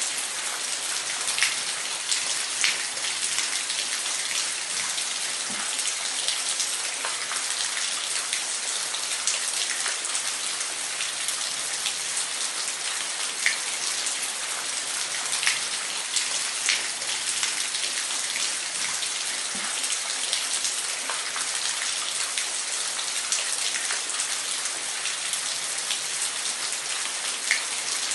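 Falling water splashing in a steady, unbroken hiss, with scattered faint droplet ticks.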